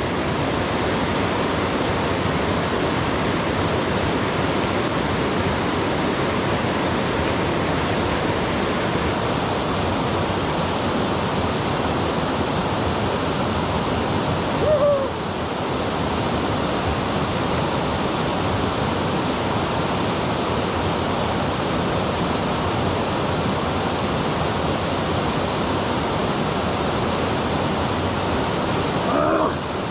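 Mountain river rushing steadily in full winter flow, an even noise of fast water. About halfway through, a brief short pitched sound.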